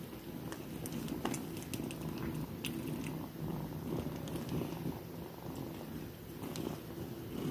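Domestic cat purring steadily, with light scattered clicks over it.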